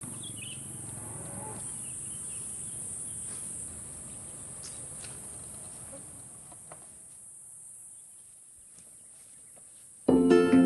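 Outdoor farm ambience: a steady high insect buzz like crickets, a few faint bird chirps and small ticks, slowly fading. Plucked-string music starts near the end.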